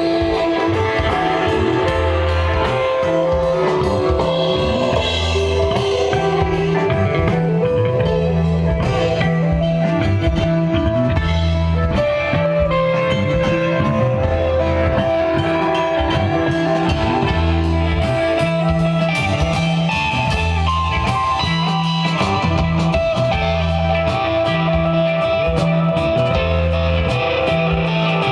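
Live instrumental desert rock jam: a sustained electric guitar line over a repeating bass figure and a drum kit with cymbals, all playing steadily.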